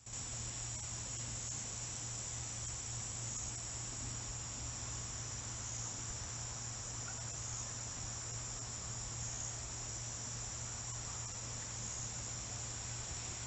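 Steady high-pitched chorus of insects, continuous with a slight pulsing, over a constant low hum and hiss.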